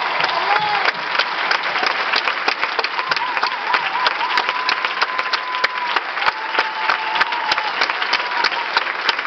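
Theatre audience applauding a finished dance number: dense, steady clapping from many hands.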